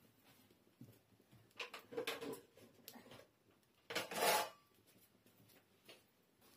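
Metal utensils clattering off-camera twice: a short rattle about two seconds in and a louder clank about four seconds in.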